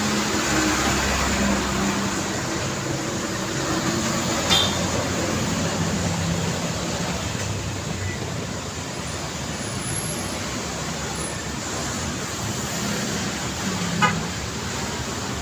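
Steady city road traffic noise from passing cars and other vehicles, with two short sharp clicks, one about four and a half seconds in and one near the end.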